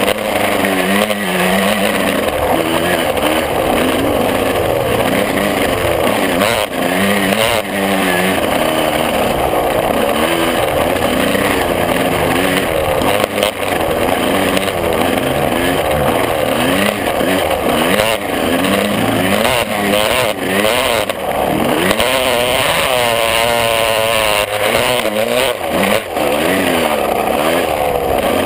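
125cc two-stroke motocross bike engine running hard and revving up and down over and over, as heard from a camera mounted on the bike.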